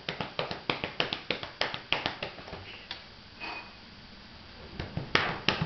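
Hands patting and drumming quickly on a cat's back as a massage, about four or five soft slaps a second. The patting stops about three seconds in and starts again near the end.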